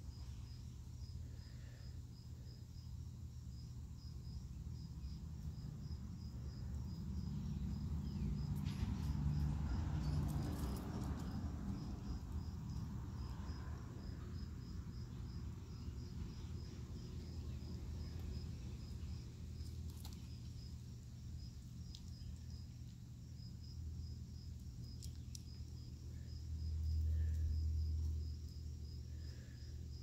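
High, thin chirping repeated evenly a few times a second without a break, over a low rumble on the microphone that swells twice.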